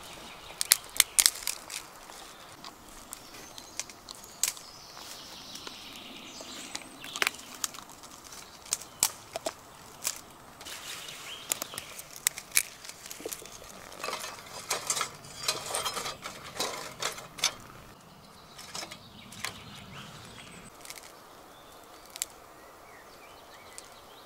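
Dry twigs snapped by hand and dropped into a small steel firebox stove: irregular clusters of sharp cracks and light clatters with rustling between, thinning out near the end.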